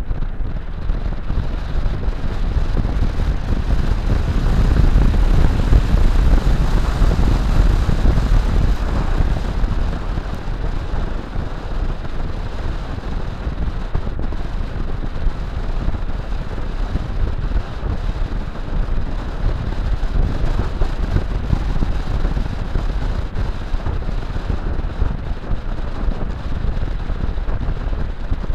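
Wind rushing over the microphone and tyre roar from an electric motorcycle riding along a road, with no engine note. It is a steady rumbling rush that grows loudest about five to eight seconds in as the bike gathers speed.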